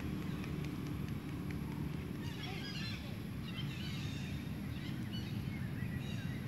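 Short, high-pitched animal chirps and squeaks, a cluster of them starting about two seconds in and a few more near the end, over a steady low rumble.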